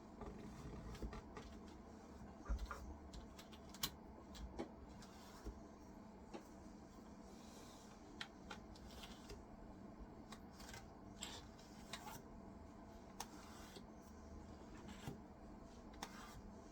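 Faint, scattered small clicks and light scraping of hands cleaning grime out of a dirty keyboard part, over a low steady hum.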